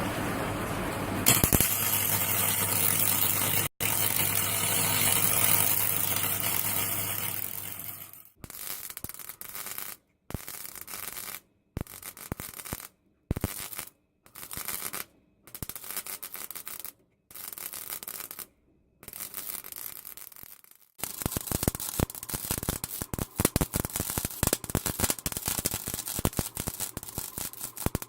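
Edited bursts of metal bodywork repair on a rusty van underside. There is several seconds of steady, loud hissing abrasion, then short clips broken by silent gaps, and from about two thirds of the way through a dense, irregular crackle of a small hobby welder welding thin sheet steel.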